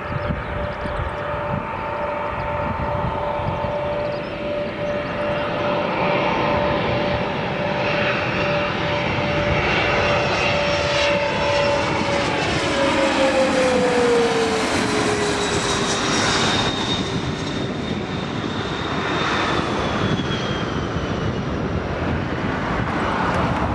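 Canadair CRJ-100LR regional jet on landing approach passing low overhead. The whine of its two rear-mounted General Electric CF34 turbofans holds steady, then drops in pitch about halfway through as it goes by. A rushing jet noise underneath grows louder, peaks as it passes, and stays loud as it moves away.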